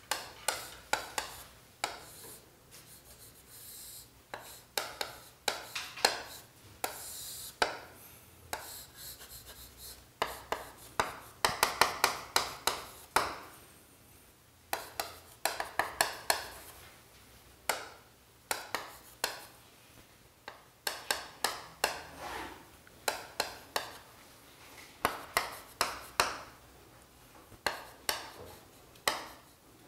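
Chalk on a chalkboard: irregular runs of quick taps and short scratching strokes as lines and symbols are drawn.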